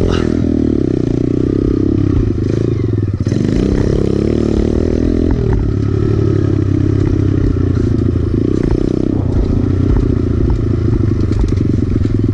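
Kawasaki KLX pit bike's single-cylinder four-stroke engine running under way on a dirt trail, heard from the rider's onboard camera. The engine revs up and eases off several times as the throttle opens and closes.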